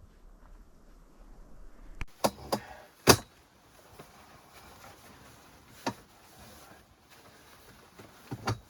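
A few sharp knocks and clatters, the loudest about three seconds in, with more near the middle and the end, over a low hiss.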